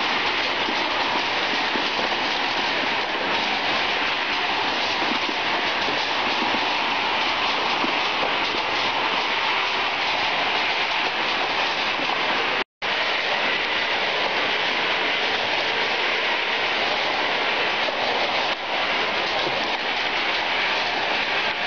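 Nut grading machine running: a steady, dense rattle of nuts tumbling through it and out of its outlets. The sound cuts out for an instant about halfway through.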